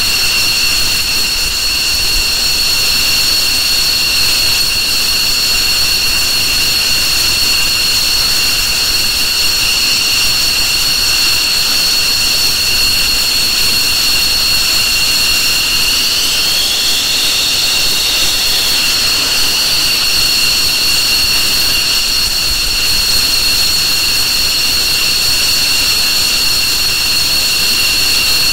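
F-15 Eagle twin turbofan jet engines running with a steady, high-pitched whine. About halfway through, one whine briefly rises in pitch and settles back.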